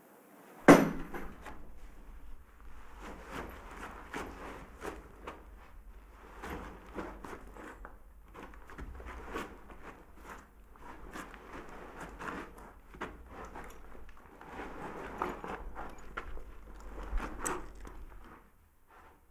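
A sudden loud knock about a second in, then irregular shuffling, scuffing and small clicks of footsteps and movement on a dirt floor, over a low rumble that stops near the end.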